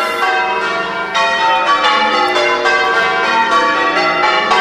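A ring of eight church bells, cast in 1880 by John Taylor and Company, ringing changes: a continuous, even run of strikes in quick succession, each bell's tone ringing on under the next.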